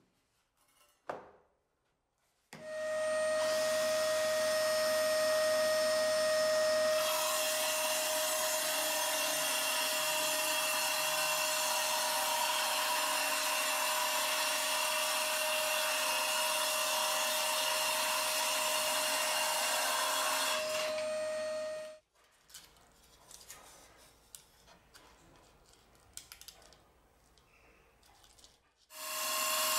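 Homemade circular saw driven by a Bosch cordless drill, with a vacuum hose on its dust port, starting up a couple of seconds in and cutting through a plywood sheet. It gives a steady motor whine over the hiss of the blade and the suction, then cuts off suddenly about two-thirds of the way through. Soft knocks and scrapes follow as the cut panel is handled, and the saw starts up again at the very end.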